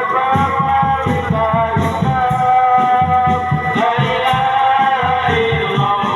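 Loud music played through a large sound system: a sustained melody line over a quick, steady beat with shaker-like percussion.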